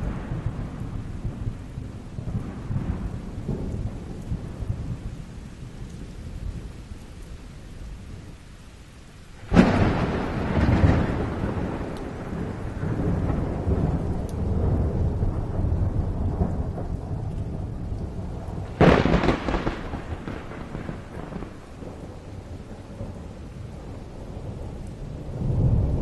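Thunderstorm with rain: two sharp thunderclaps, about ten seconds in and again near nineteen seconds, each rolling on into a long low rumble.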